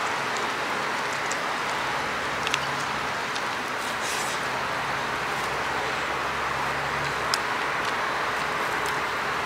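Steady background road traffic noise, with a low engine hum coming in for a few seconds in the middle and a few faint clicks.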